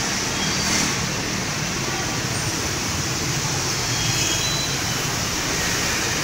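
Steady street traffic noise from passing vehicles, a continuous even wash of engine and road sound.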